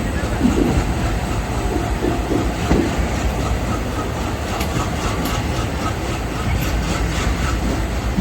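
Indian Railways train running along the track, a steady low rumble with wheels clicking over the rail joints, the clicks clearer in the second half.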